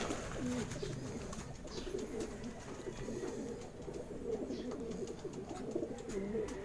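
Racing pigeons cooing continuously in low, wavering coos that overlap one another, with a few faint handling clicks.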